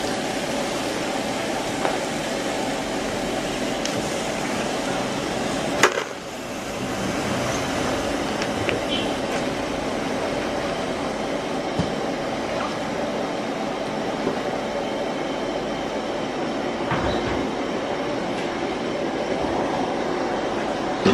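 A steady, even rushing noise with a few light knocks, one sharper knock about six seconds in.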